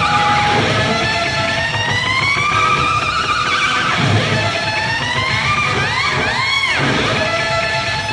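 Southern rock band playing, led by an electric guitar with long pitch bends sliding up and down, and a quick run of arched bends climbing high about six to seven seconds in.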